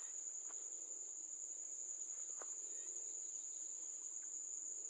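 Insects in the rice field singing a steady, high-pitched, unbroken drone, with a few faint ticks.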